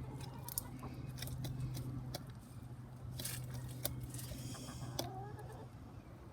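Chickens making a few soft calls, with scattered sharp clicks and scuffling, over a steady low hum.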